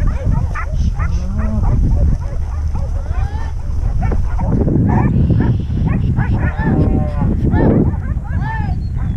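A herd of cattle mooing and bawling, many short calls overlapping one another and coming thicker in the second half, over a steady low rumble.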